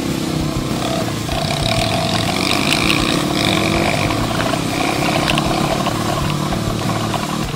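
Dirt bike engine running under way, heard close up from the riding bike, its pitch held fairly level.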